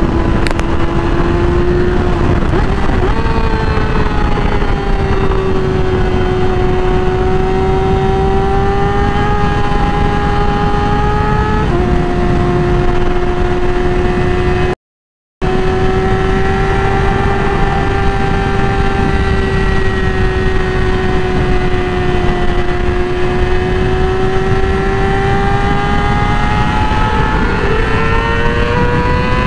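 Yamaha R6 sport bike's inline-four engine running at high revs while riding: a steady high-pitched note that drifts slowly up and down and climbs near the end. It jumps in pitch about twelve seconds in and cuts out for half a second a little after halfway.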